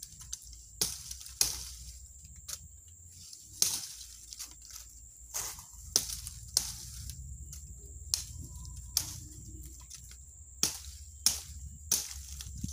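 Dry twigs and leaf litter snapping and crackling, about a dozen sharp cracks at irregular intervals, roughly one a second.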